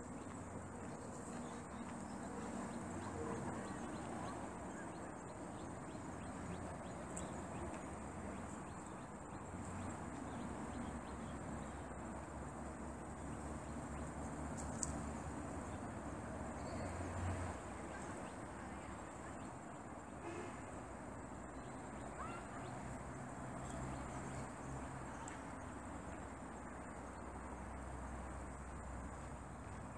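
Steady outdoor background noise: a thin, steady high-pitched tone over a low rumble, with a single sharp click about halfway through.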